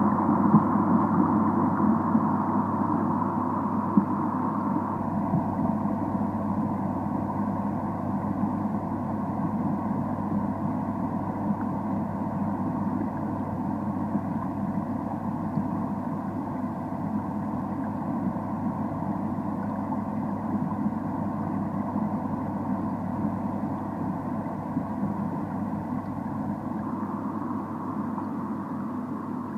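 Steady machine hum with several held tones over an even rumble, easing slightly in level over the stretch.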